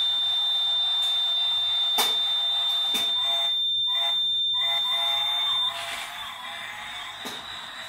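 Warning buzzer of a model railway crossing sounding one steady high-pitched tone while the toy train passes the closed barriers. It cuts off suddenly about six seconds in as the signal turns green. A few sharp clicks are heard along the way.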